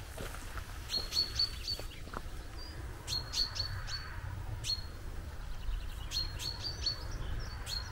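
A songbird singing about four short phrases, each a quick run of three or four high notes at one pitch, over a low steady rumble.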